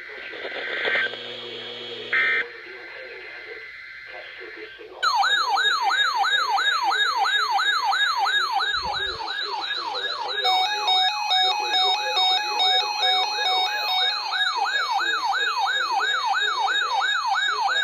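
Emergency alert receiver's electronic siren: a loud warbling alert tone sweeping up and down about twice a second. It starts about five seconds in, after a few seconds of faint radio voices and steady tones. About halfway through, an intermittent beeping alert tone joins it.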